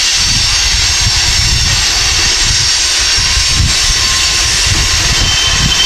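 Freight train of covered hopper cars rolling slowly past, a steady hiss over an uneven low rumble.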